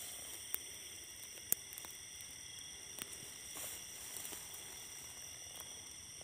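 Steady high-pitched chorus of night insects such as crickets, with a couple of sharp clicks in the first two seconds.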